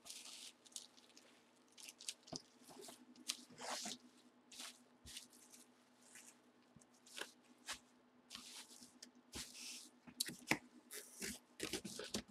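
Faint, irregular rustling and crinkling of bubble-wrap packing as a slabbed comic is pulled from its box and handled, with a few light clicks and knocks of the hard plastic slab case.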